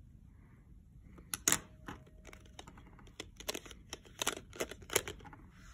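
Small paperboard packaging boxes being handled: an irregular run of sharp clicks, taps and scrapes as the cardboard knocks and rubs together, starting about a second in.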